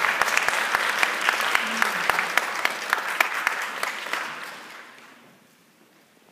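Audience applauding, with some sharp claps close by. The applause dies away about four to five seconds in.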